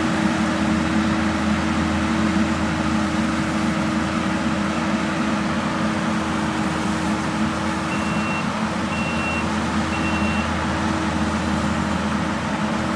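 Skid steer running steadily on a mowing job, a constant engine and machine drone. About two-thirds of the way through, its reversing alarm beeps three times, about once a second, as it backs up.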